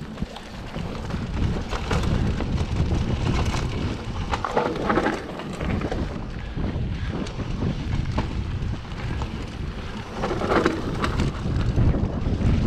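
Wind buffeting the microphone of a mountain bike descending a dirt forest trail, over a steady rumble of tyres on the ground and frequent small knocks and rattles from the bike on rough terrain. The noise swells louder twice, about four and a half seconds in and again near the end.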